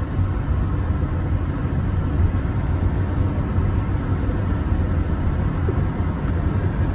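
Steady low rumble of a tour bus driving, heard from inside the cabin.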